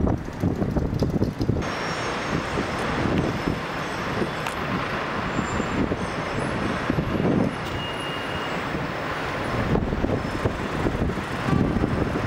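Wind buffeting the microphone over the steady hiss and rumble of city street traffic below; the traffic hiss grows fuller about a second and a half in.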